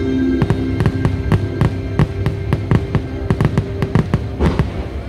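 Fireworks bursting in rapid succession, several bangs a second, over loud show music that holds sustained notes. The barrage and the music stop together near the end.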